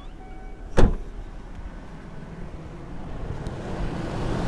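Car engine idling just after a cold start, with no tapping from the hydraulic valve lifters. One sharp knock comes about a second in, and a hiss grows louder near the end.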